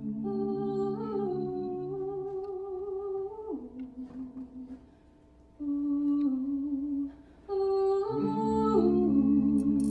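A small a cappella vocal ensemble singing slow, held chords that move together from one chord to the next. The sound thins and briefly falls away twice about halfway through, then returns fuller and lower near the end.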